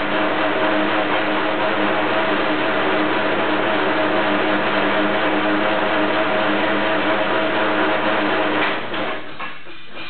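Electric wire stripping machine running steadily with a hum while insulated copper wire is fed through it, stopping about nine seconds in.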